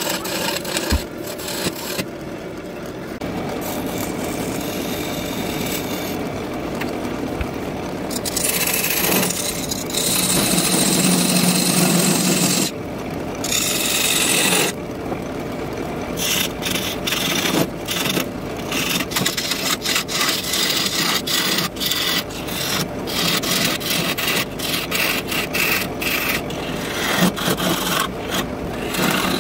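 Bowl gouge cutting a black walnut bowl blank spinning on a wood lathe, a scraping hiss of shavings coming off. Long cuts with short pauses give way about halfway through to many short, rapid stop-start cuts.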